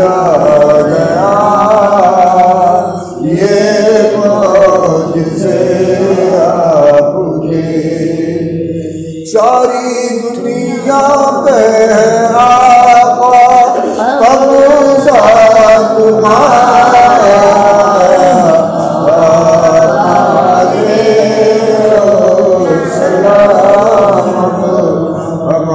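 A male voice chanting an Urdu devotional salam (naat-style recitation), sustained melodic lines one after another. The voice fades about eight seconds in, and the next line comes in abruptly just after nine seconds.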